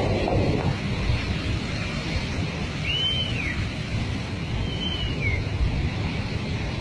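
Steady rushing of a muddy flash-flood torrent surging down a mountain river valley, mixed with wind on the microphone. Two short high whistles that rise and fall cut through it, about three and five seconds in.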